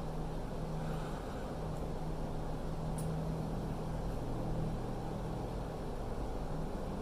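Steady low mechanical hum over an even rumbling background, with one faint click about three seconds in.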